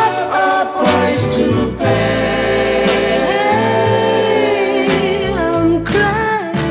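An oldies pop/soul record playing: voices singing long, wavering held notes over a band with a steady drum beat.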